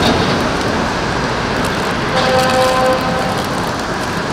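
Steady city street traffic noise, with a brief steady pitched tone, like a vehicle horn or squeal, sounding for about a second around two seconds in.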